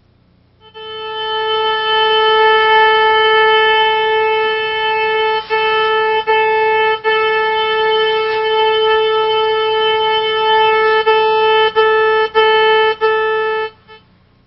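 Goldak sewer locator receiver's audio signal tone: one steady electronic note, loud and unwavering, picking up the sewer transmitter's signal. It cuts out briefly about six times in the second half, then stops.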